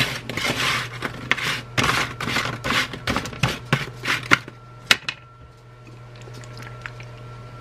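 Seasoning powder being shaken from its packet onto oven crisps on a tray: a run of short, scratchy rustles that stops about four and a half seconds in.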